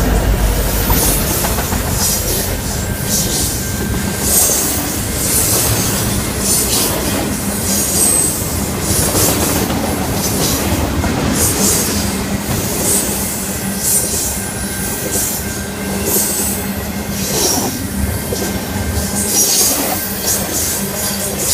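Union Pacific train rolling past: a steady rumble of wheels on rail, with clicks and a high wheel squeal that keeps coming back every second or two.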